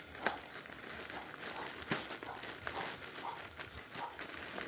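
Plastic courier mailer bag rustling and crinkling as hands work it open, with two sharper crackles, one about a quarter second in and one about two seconds in.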